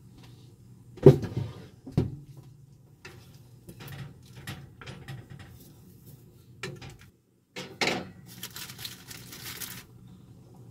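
Kitchen clatter from cooking: two loud knocks about one and two seconds in, then lighter knocks and scrapes of a wooden spoon against a steel saucepan. Another knock near the end, followed by a couple of seconds of hissing, over a low steady hum.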